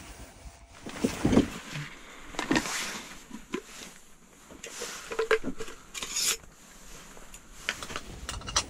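Handling noises: rustling of clothing and a sleeping bag, with irregular light knocks and clicks as a plastic cup and lid are handled and set down.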